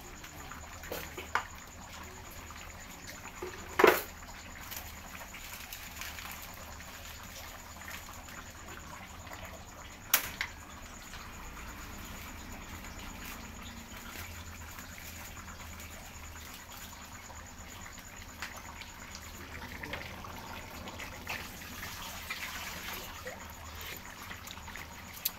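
Stew simmering in a pot on a gas stove, a steady low bubbling hiss. A few sharp knocks cut through it, the loudest about four seconds in and another about ten seconds in.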